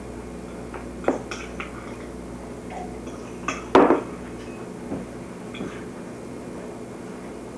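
Dishes and utensils clinking and clattering in a few scattered knocks, the loudest about four seconds in, over a steady low hum.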